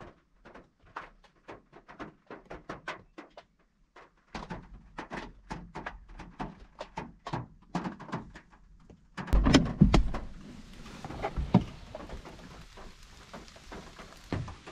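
Raindrops ticking irregularly on a car's roof and glass, heard from inside the cabin. About nine seconds in, a few heavy thunks as the car door is opened, then a steady hiss of falling rain comes in through the open door.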